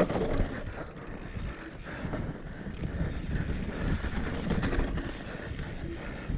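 Mountain bike descending a dry dirt singletrack: tyres running over loose dirt and the bike rattling over bumps, with wind rushing over the camera microphone.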